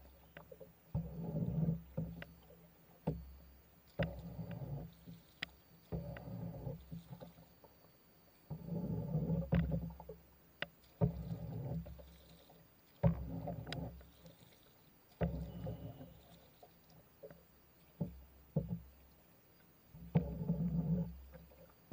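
Paddling a small boat: a homemade paddle with a round plastic blade dipping and pulling through the water, about one stroke every second or two, with scattered sharp knocks.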